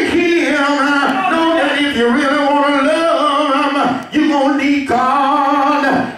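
A man singing into a handheld microphone, unaccompanied, in long drawn-out phrases with wavering held notes, pausing for breath about two and four seconds in.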